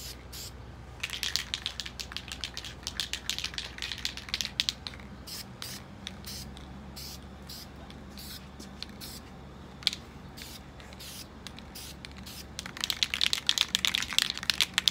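Aerosol spray-paint can spraying in a run of short hissing bursts during the first few seconds and again near the end, with only faint ticks in between.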